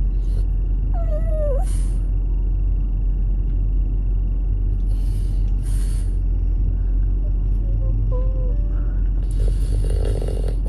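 French bulldog giving a short wavering, falling whine about a second in, and a few fainter short whines later, over the steady low rumble of a car's cabin. A couple of brief hisses come through midway and near the end.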